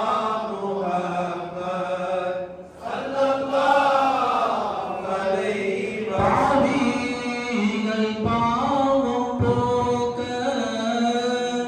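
A man's voice chanting a devotional supplication through a microphone, in a slow melodic line of long held notes that glide up and down.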